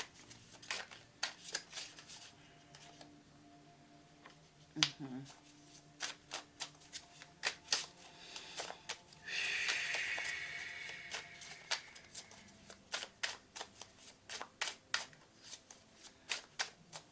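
Tarot cards being shuffled and dealt onto a table: a long run of quick, sharp card snaps, with a longer rustle a little past halfway.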